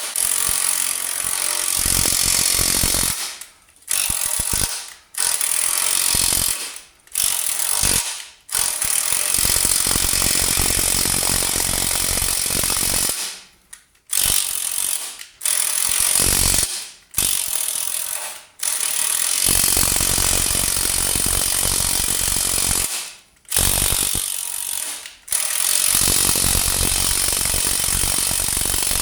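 Pneumatic impact wrench hammering at a seized, rusted 19 mm suspension bolt in repeated bursts: a few short blips, then longer runs of several seconds with brief pauses between.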